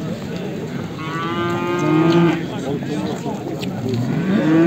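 Cattle mooing twice: one call of about a second and a half beginning about a second in, and a second call starting near the end.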